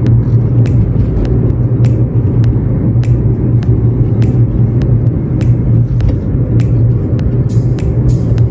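A car driving along a street, heard from inside the cabin: a steady, loud, low rumble of engine and road noise, with faint ticks about twice a second.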